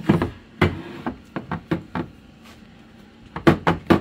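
Hands patting and pressing thick cake-batter crust into a glass baking dish, giving a series of dull knocks: several in the first two seconds, a short pause, then a quicker run of knocks near the end.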